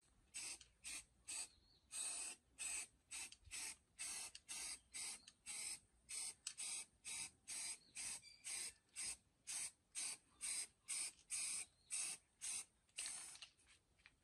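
Quick short sprays of hissing from a spray nozzle, about two a second, repeated steadily and stopping shortly before the end.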